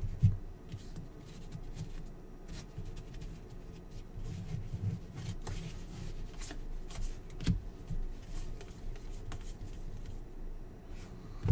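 A stack of glossy basketball trading cards being flipped through by hand, each card sliding off the pile with irregular light clicks and rustles.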